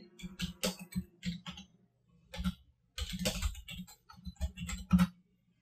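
Typing on a computer keyboard: a run of keystrokes, a pause around the two-second mark, then a denser run of keystrokes that stops shortly before the end.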